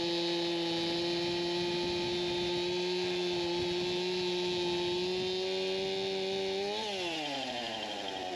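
Stihl chainsaw running at full throttle with a steady high engine note, then the throttle is let off about seven seconds in and the pitch falls away toward idle.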